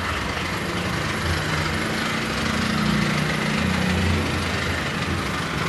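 Toyota Hiace van's engine running steadily, a continuous low hum with no changes in speed.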